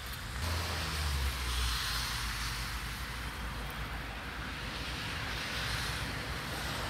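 Steady hiss of a wet outdoor street with a low rumble underneath; the rumble is strongest from about half a second to two seconds in.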